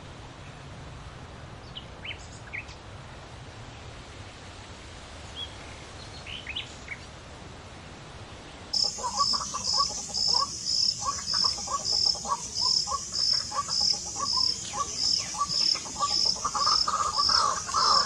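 Faint steady hiss with a few scattered faint bird chirps. About nine seconds in, a louder outdoor chorus begins: an insect pulses steadily about twice a second, with many quick repeated bird calls beneath it.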